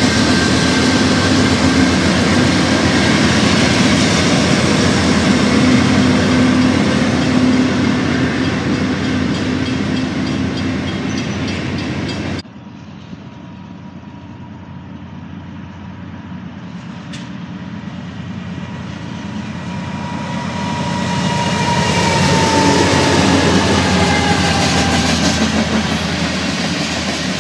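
Diesel freight locomotives and a double-stack container train run loudly past close by. About twelve seconds in the sound cuts abruptly to a quieter scene, where a second freight train of covered hopper cars grows louder as it approaches and rolls past over the rails.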